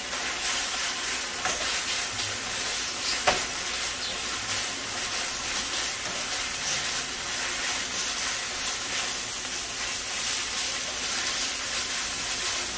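Ground beef sizzling in a frying pan as it is stirred with a spatula, the strokes scraping through the steady sizzle while the last of the meat's water cooks off. One sharp tap about three seconds in.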